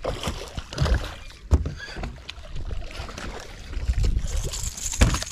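Water and handling noise as a striped bass is fought to the side of a small aluminum boat: a run of clicks and knocks, the loudest about a second and a half in and again near the end, over a low rumble.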